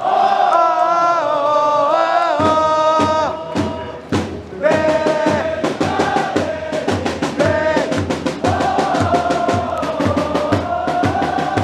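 A football supporters' crowd singing a chant together in unison. A drum beat comes in about two seconds in, and a quicker, steady beat drives the song from about halfway through.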